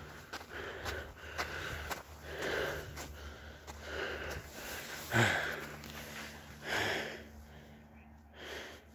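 A run of short breaths and sniffs, about one every half second to second. The loudest comes about five seconds in with a brief falling tone.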